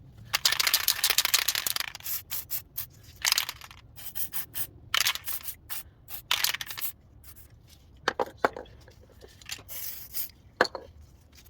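Brush strokes rubbing and scraping on the rear brake caliper carrier, applying copper grease (copper slip): a long run of strokes at first, then shorter separate strokes, with a few sharp metallic clicks in the second half.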